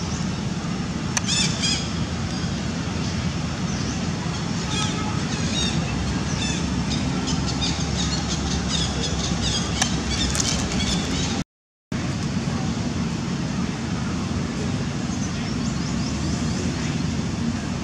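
Steady low outdoor rumble with bursts of short, high-pitched chirps and squeaks between about one and ten seconds in; the sound drops out for a moment about twelve seconds in.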